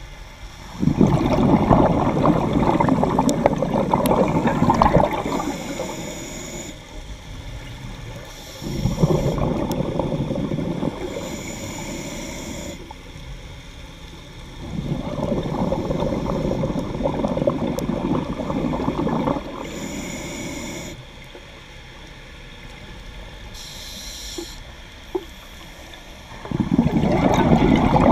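Scuba diver breathing through a regulator underwater: each long exhalation comes out as a few seconds of loud bubbling, followed by the short hiss of the next inhalation, about four breaths in all.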